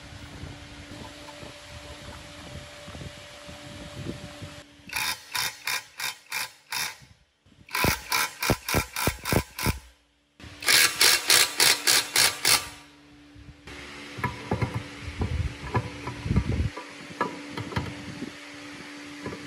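Cordless impact wrench hammering at a bolt in the cast-iron planer base, in three loud bursts of rapid rattling blows with short breaks between them. Light metal knocks and clinks of parts being handled follow.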